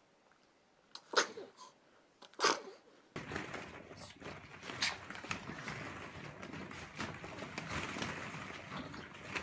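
Two short, sharp snorts from a pug, then from about three seconds in a steady clicking rattle of plastic balls shifting in a ball pit as a pug rolls around in it.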